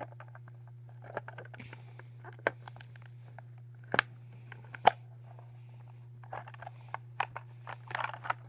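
Clear plastic packaging case being worked open by hand, its tape being pulled: scattered small clicks and scrapes, with two sharper snaps about four and five seconds in and a burst of crinkling near the end.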